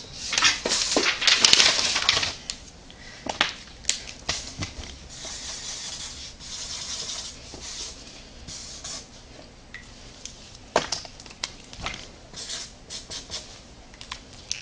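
Rummaging for a sheet of paper: rustling with scattered knocks and taps, busiest in the first two seconds.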